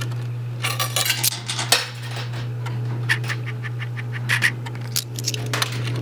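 Quarters dropping into a coin pusher and clinking against the metal playfield and the other coins, in scattered bunches of metallic clinks, over a steady low hum.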